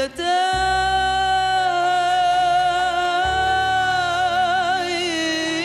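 A woman sings one long held note, its vibrato widening near the end, over a band's accompaniment with a bass line moving underneath.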